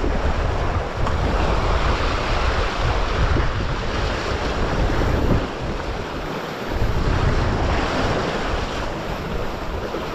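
Sea surf washing and breaking over the rocks at the shoreline, surging and easing, with wind buffeting the microphone in a low rumble.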